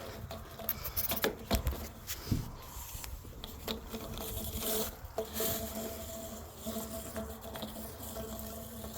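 Shiba Inu puppies scuffling at play: scattered soft patter, rubbing and rustling of paws and bodies. A faint steady hum joins in about four seconds in.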